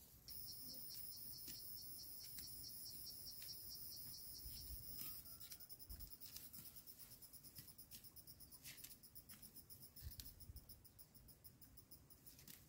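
Faint, high-pitched insect chirring that starts abruptly and pulses rapidly as it fades, with a few soft clicks.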